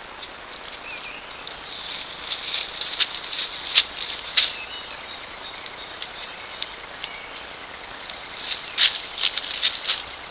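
A deer's footsteps crackling in dry leaf litter close to a trail camera, in two bunches of sharp crackles, over the camera microphone's steady hiss.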